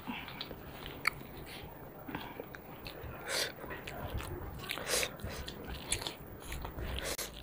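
Close-miked eating sounds: chewing and lip smacking with short, crisp bites, scattered irregularly, as two people eat rice, curry and raw salad with their hands.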